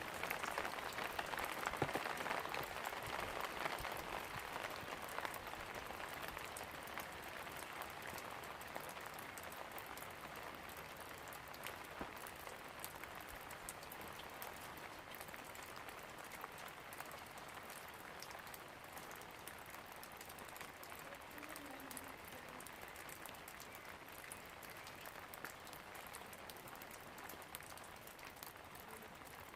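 Rain falling: a dense, even patter of countless drops. It is louder in the first few seconds and slowly grows quieter.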